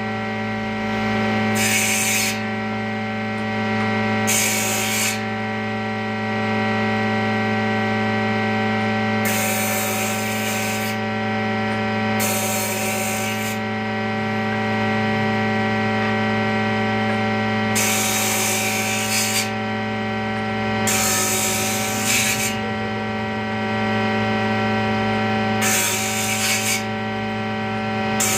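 Electric power tool running steadily on wood, its motor humming, with repeated short bursts of rasping noise every few seconds as it cuts or sands the wood.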